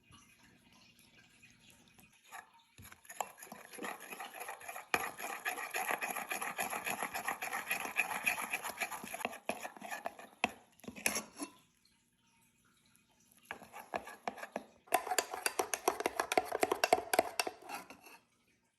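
Kitchen clatter: a utensil stirring and scraping against cookware, with rapid clinks, in two spells separated by a short pause.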